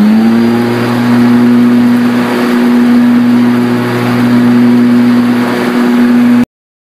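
Motenergy ME1004 brushed DC motor of an electric-converted Craftsman lawn tractor running at speed: a loud, steady hum at one pitch. It cuts off abruptly about six and a half seconds in.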